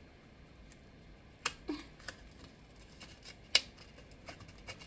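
Hands handling and opening advent-calendar packaging: scattered crinkles and small clicks, with one sharp click about three and a half seconds in.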